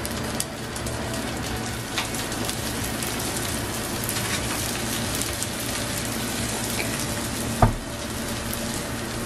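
Squid-ink paella rice sizzling and crackling steadily in a steel paella pan over a high gas flame, as the bottom crust toasts in the final step. A single sharp knock sounds about three-quarters of the way in.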